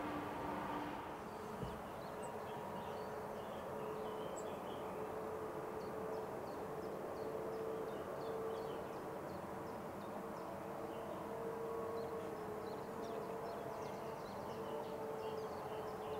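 Distant jet engine noise from a Boeing 767-300 airliner rolling along the runway: a steady hum with a faint wavering tone. Small birds chirp faintly throughout.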